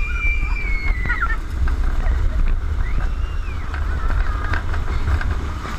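Heavy wind buffeting the microphone of an onboard camera riding an inverted roller coaster at speed, with a long high-pitched cry over the first second and a half and shorter ones about three and four and a half seconds in.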